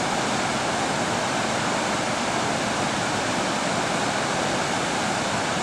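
Fast white water rushing through a rocky river canyon: a steady, unbroken roar.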